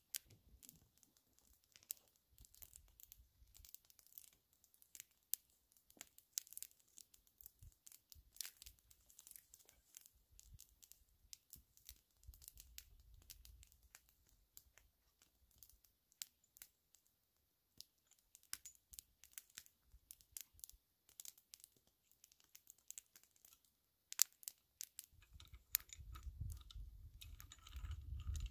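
Faint, sparse crackling and popping of a small twig fire burning on a rock. A low rumble comes in near the end.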